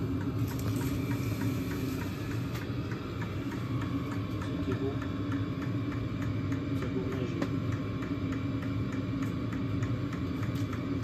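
HCALORY diesel heater running: its fuel pump ticks at an even pace over the steady hum of the blower fan.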